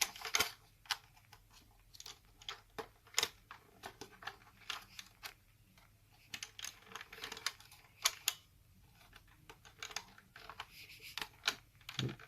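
Irregular plastic clicks and taps as foam Rival balls are handled and pushed into the open breech of a Nerf Rival Takedown blaster.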